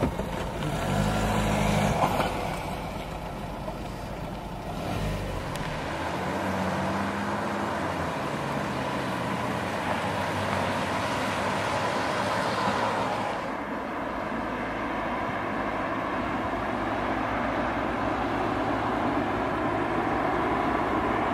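Camouflaged Renault crossover test prototypes driving past, engine and tyre noise with a steady rush of road noise. The sound changes abruptly about two-thirds of the way through.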